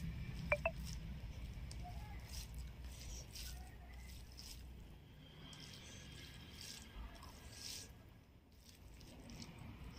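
Fingers squishing and mixing cooked rice with tomato curry on a plate, faint soft wet clicks and scrapes, with two sharp ringing clicks about half a second in.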